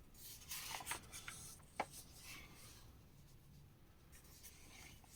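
Faint rustling and soft ticks of paper as the pages of an old magazine are handled and turned, with one sharper tick a little under two seconds in.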